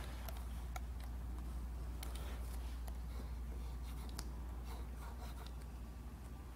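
Stylus tapping and scratching lightly on the screen of a Huion Kamvas GT-191 pen display, a scatter of short clicks, over a steady low hum.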